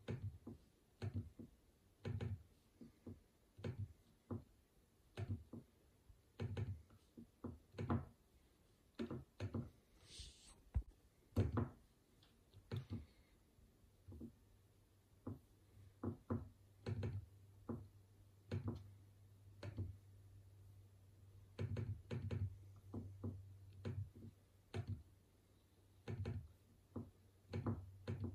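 Irregular short knocks and clicks, roughly one or two a second, with a low steady hum setting in about halfway through.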